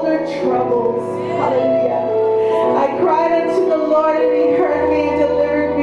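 Woman singing a worship song into a microphone, her voice carried over sustained chords on an electronic keyboard.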